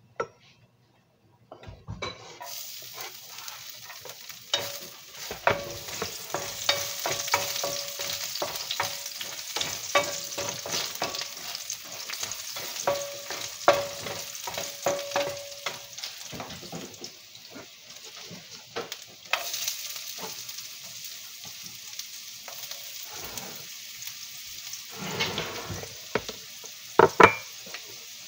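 Food sizzling in oil in a frying pan, stirred with a spatula that scrapes and clicks against the pan; the sizzle starts about two seconds in. A few louder knocks come near the end.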